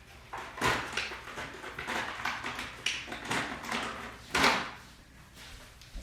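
Handling noises: irregular rustling and light knocks of small objects being picked up and moved about, two louder rustles about a second in and near four and a half seconds in.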